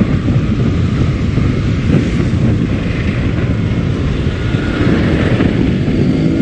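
Motorcycle riding slowly with its engine running steadily, under a heavy rumble of wind on the microphone.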